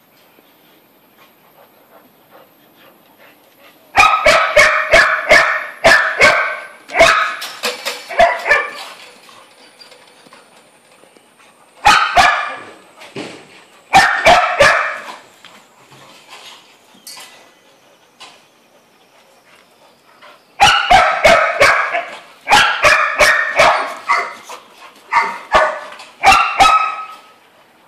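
A dog barking in rapid volleys: a long run of barks from about four to nine seconds in, two short bouts around twelve and fourteen seconds, and another long run from about twenty-one seconds to near the end.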